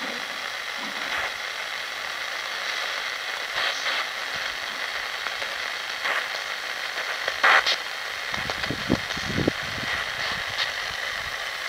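Sangean ATS-505 shortwave radio giving steady static hiss through its speaker while being tuned down through the 16–17 MHz band, with no station coming in. A few short blips and crackles break through the hiss as it steps across frequencies.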